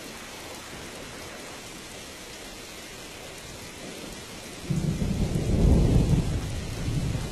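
Steady rain, joined about two-thirds of the way through by a deep rumble of thunder that swells, peaks and begins to fade.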